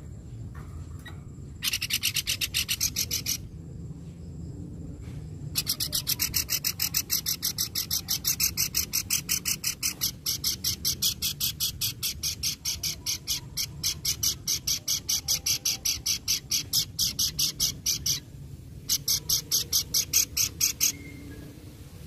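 A caged pelanduk bukit babbler giving a harsh, rasping chatter of rapid repeated notes, about six a second. It comes in three bursts: a short one about two seconds in, a long run of roughly twelve seconds, and a final short burst near the end.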